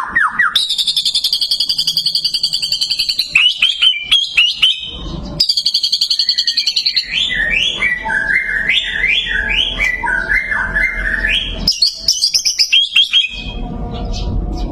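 White-rumped shama (murai batu) singing loudly. It gives a long, fast trill, a few sharp whistles and a second rapid trill, then a run of short rising notes, ending on high notes near the end. These are the rapid-fire 'tembakan' bursts prized by songbird keepers.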